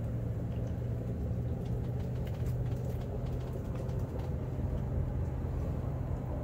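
Steady low mechanical hum from a running machine, with a few faint, irregular ticks over it.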